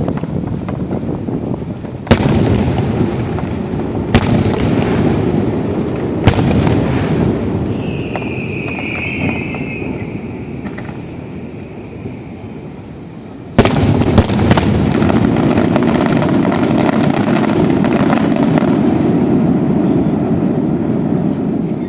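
Aerial fireworks going off: three single booms about two seconds apart, each trailing off in a long rumble. A little past halfway a rapid barrage of many bangs and crackles starts and rolls on without a break.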